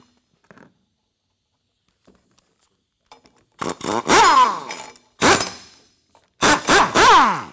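Handheld power tool spinning bolts into the threaded holes of a powder-coated steel cross-member bar, chasing paint out of the threads. It runs in short bursts, one about three and a half seconds in, a brief one after, then a few quick ones near the end, each winding down in pitch as the trigger is let go.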